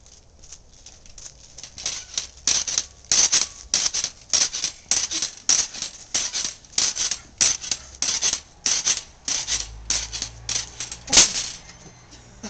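Footsteps of sneakers on a concrete driveway, about two a second, faint at first and growing louder as they come closer, with one sharper, louder click near the end.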